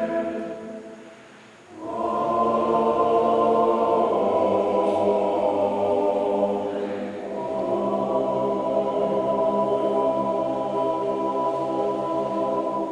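Male Alpini choir singing a mountain song a cappella in several parts: a held chord dies away, a new phrase enters about two seconds in, and after a brief breath near the middle the voices settle on a long sustained chord.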